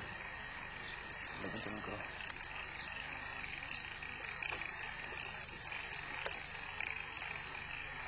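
Steady background chorus of calling wildlife, an even drone with a few faint ticks.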